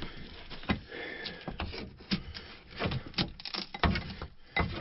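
PEX water tubing being pulled through a run inside a boat's fibreglass hull, giving a string of irregular knocks, rubs and scrapes as it drags along.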